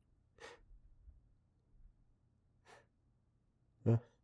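A man's breathing: short breathy intakes, then a louder voiced gasp near the end.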